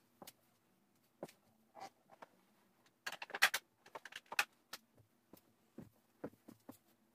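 Makeup items being handled and set down: scattered light clicks and knocks of small containers, with a brief burst of rattling clicks about three seconds in.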